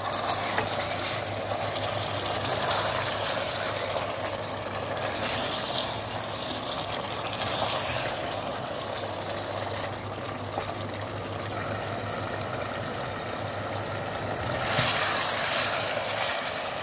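Chicken pieces frying in thick onion-tomato masala in a pressure-cooker pot, sizzling steadily while a spatula stirs and turns them. This is the bhuna stage, with the chicken letting out its own juices into the masala. The sizzle swells louder near the end, over a low steady hum.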